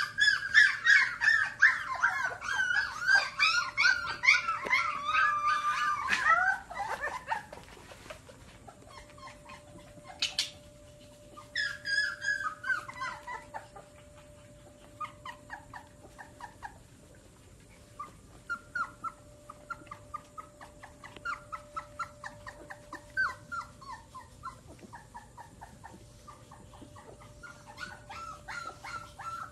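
Puppies whimpering and whining in high, wavering cries, loud and dense for the first several seconds, with another burst about twelve seconds in, then softer short whimpers.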